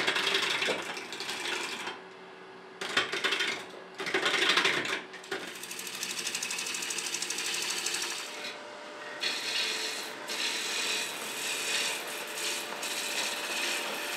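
Wood lathe spinning a green wood bowl blank while a turning tool cuts away the outer bark: a rough scraping rasp of steel on wood. It comes in uneven bursts for the first five seconds, then settles into steadier cutting over a faint steady hum.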